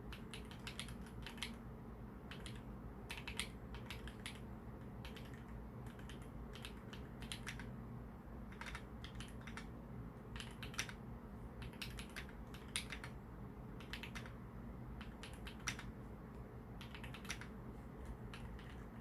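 Keys being pressed on a BUFF67 V2 custom mechanical keyboard with an aluminum plate, its stabilizer wires just adjusted: sharp typing clicks, irregular, some single and some in quick runs.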